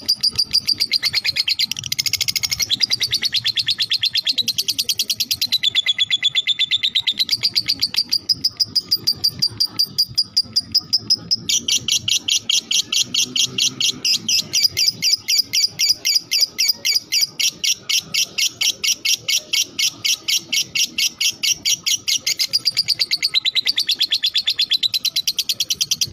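Lovebird ngekek: a long, unbroken trill of rapid, evenly repeated chattering notes. It changes pitch a few times and grows fuller about halfway through.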